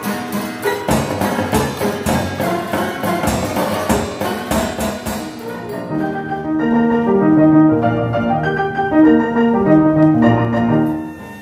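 Mechanical music from a coin-operated barrel jukebox, its pinned drum playing a piano with drum and cymbal strikes in a busy, percussive texture. About six seconds in it changes to plainer, held piano notes from a piano played by a push-up piano-roll player.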